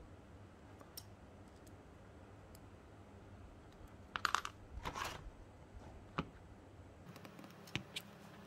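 Faint clicks and clinks of small metal parts being handled by hand, with a short cluster of rattling and rustling about four to five seconds in as small screws are picked out of a plastic bag.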